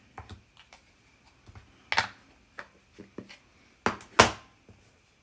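Corner rounder punch snapping through card stock, rounding the card's corners: a few sharp clicks, the loudest about two seconds in and two close together near four seconds, with light tapping and paper handling between.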